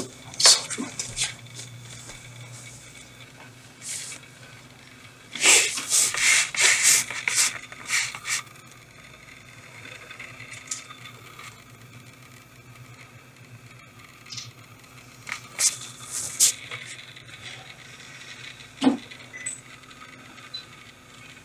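Scattered rattles, knocks and scrapes of objects being handled and moved, in bursts about five to eight seconds in and again around the middle of the second half, over a steady low hum.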